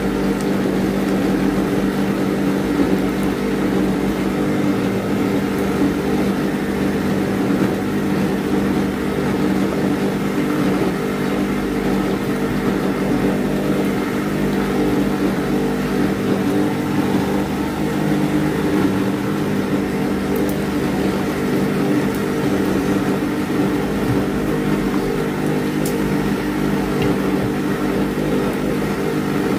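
Meat deep-frying in a pot of hot oil, a steady sizzle and bubbling, over a loud, steady machine hum.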